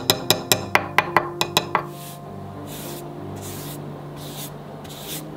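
Repeated swishing strokes of a cloth pad rubbing wood oil into a solid-wood countertop, about one stroke every two-thirds of a second, starting about two seconds in. Soft background music plays throughout, with a run of plucked notes in the first two seconds.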